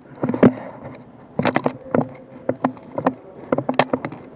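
Irregular sharp clicks and knocks, a few a second, from an airsoft player moving quickly with a rifle.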